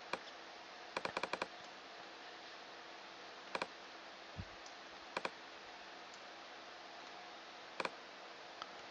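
Computer mouse and keyboard clicks: a quick run of about five clicks about a second in, then double clicks spread through the rest, with a short low thump near the middle. A faint steady room hum sits under them.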